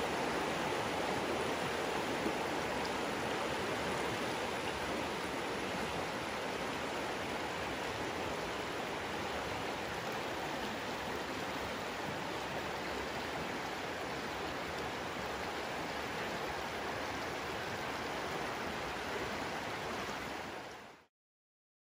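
Shallow stream running over rocks, a steady rush of rippling water. It fades out quickly near the end into silence.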